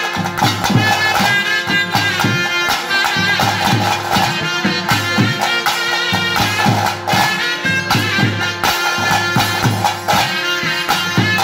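Nadaswara, the South Indian double-reed wind instrument, playing a winding melody over a steady drone, with stick-beaten drums keeping a quick, even rhythm underneath.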